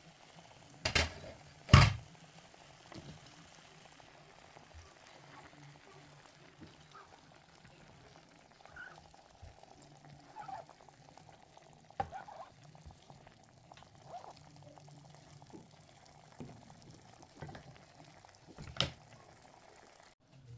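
Faint kitchen cooking sounds: a low steady background with light bubbling, broken by a few sharp knocks, the loudest about two seconds in and another near the end.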